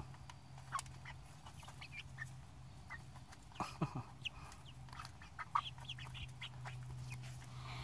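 Young chickens (seven-week-old pullets) peeping and chirping in short, scattered calls, some gliding in pitch, over a faint steady low hum.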